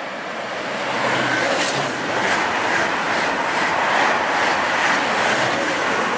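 TGV high-speed trainset passing at speed directly below, a rushing noise of wheels and air that builds over the first second, holds with a regular clicking of wheels about two to three times a second, and fades near the end.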